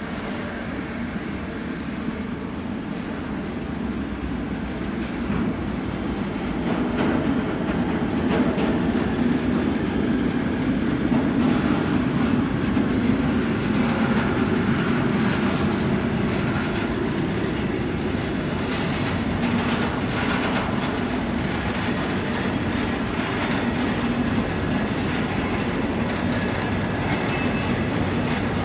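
A tank-wagon freight train rolls slowly into the station, its wheels clattering over the rail joints and growing louder as the wagons come alongside. A faint high squeal, typical of brakes, comes from the train as it slows to stop in the station.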